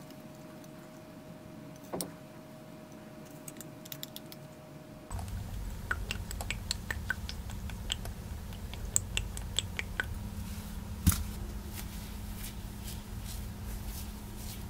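Light metallic clinks and clicks of cutlery and tableware at a café table over a low room rumble. A quiet stretch with a faint steady hum and a single click comes first, and the louder rumble and clinks start suddenly about five seconds in.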